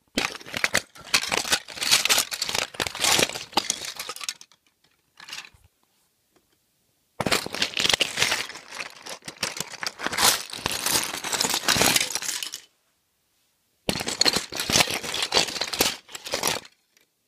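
Loose plastic LEGO pieces clattering and rattling against each other in three stretches, each starting and stopping abruptly.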